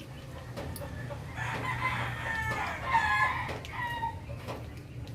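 A rooster crowing, two long drawn-out calls between about one and a half and four seconds in, over a steady low hum.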